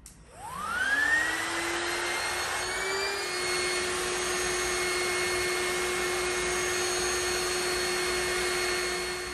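Electric air pump switching on and inflating an air mattress. Its motor whine climbs in pitch over the first second or two as it spins up, then runs steadily with a loud rush of air.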